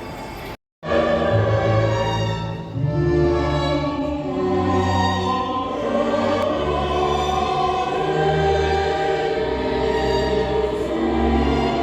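Choral music with orchestra: voices holding long sustained chords that change every second or so, after a very short break in the sound under a second in.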